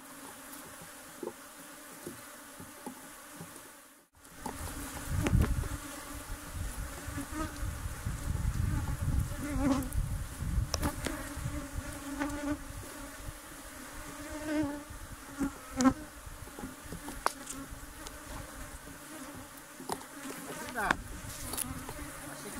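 Honeybees buzzing steadily around an opened hive. Scattered sharp clicks and knocks and a spell of low rumble from the hive being worked come through the buzzing.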